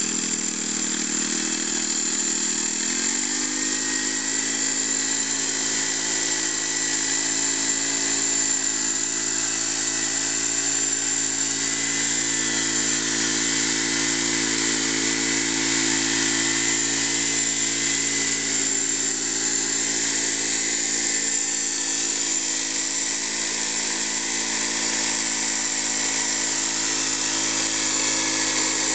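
Honda GX31 single-cylinder four-stroke petrol engine driving an RC tank chassis, running steadily at high revs. It picks up speed about three seconds in, then holds, with a thin high whine over it.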